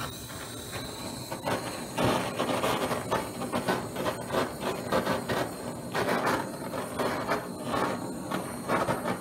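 Handheld gas canister torch burning with a steady hissing flame, rising and falling unevenly in level, as it is played over damp paper on a wooden disc to scorch it.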